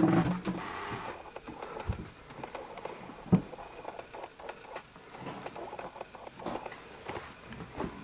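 Footsteps and scattered small knocks and rustles of a person moving through a cluttered room, with one sharp knock about three seconds in.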